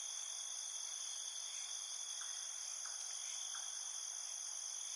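Steady, high-pitched chorus of insects, crickets-like, several shrill tones held without a break.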